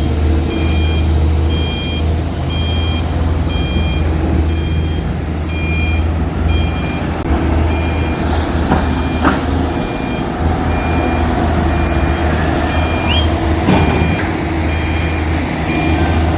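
A reversing alarm on heavy mining equipment beeps about once a second over the steady low drone of a large diesel engine. A few sharp metallic knocks come in the second half.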